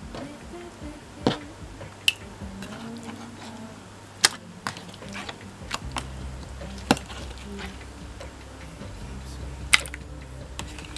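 Purple slime being pressed and poked in a metal tin, giving several sharp splodge pops and clicks spaced irregularly, over quiet background music.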